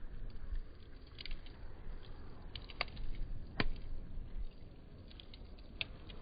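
Wood fire crackling: scattered sharp pops of burning wood over a low steady rumble, the loudest pop about three and a half seconds in.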